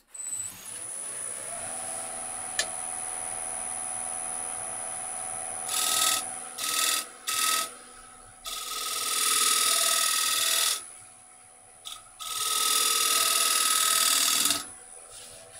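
Wood lathe motor spinning up and then running with a steady hum, while a hand tool works the spinning wood of a plate's middle: three short touches, then two longer passes of about two seconds each.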